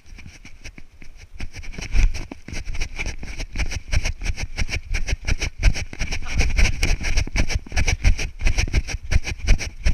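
Wind buffeting and rubbing on a worn action camera's microphone while its wearer runs: a dense, irregular low rumble broken by quick knocks, likely footfalls and the camera jolting.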